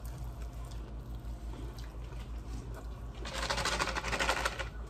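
Foil lid of a KFC dipping-sauce cup being peeled open: a dense crackling rustle lasting about a second and a half, starting about three seconds in, over a low steady hum.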